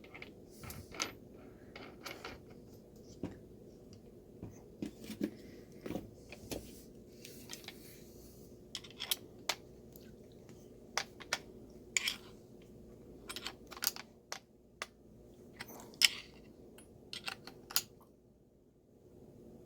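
Irregular clicks, taps and light metallic clinks of parts being handled while a chain disc is fitted onto an angle grinder's spindle, over a faint steady hum.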